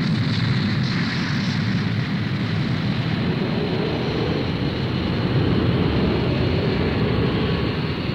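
Spaceship engine sound effect from an animated space scene: a steady rumble with a hiss on top, the ship under way at slow ahead.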